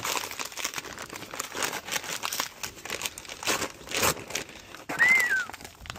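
Paper sack of Rapid Set concrete mix being torn open by hand: irregular crinkling and ripping of the heavy paper. About five seconds in there is one short high tone that rises and falls.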